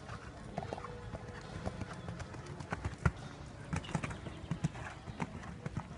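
Hoofbeats of an Oldenburg sport horse cantering on sand arena footing: dull, irregular thuds that grow louder and more frequent from about halfway in as the horse passes close by.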